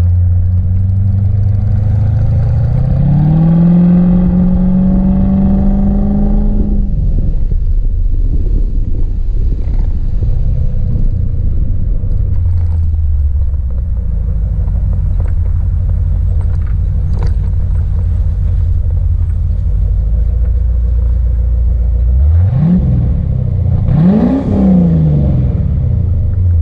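Chevrolet C4 Corvette V8 engine revving up and holding a higher pitch for about three seconds, then dropping back to a low steady idle. Near the end come two quick throttle blips.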